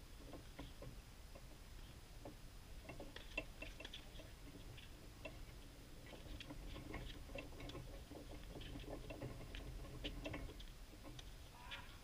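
Faint, irregular ticks and clicks, busiest from about three seconds in until near the end, with one sharper click about three seconds in.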